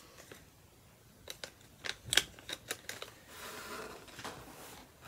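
Small unboxed items and packaging being handled: a quick run of sharp clicks and taps, then about a second of soft rustling.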